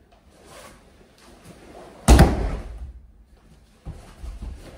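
A training partner thrown onto the dojo mat, his body landing with one loud slam about two seconds in. A few softer thumps and rustles follow near the end.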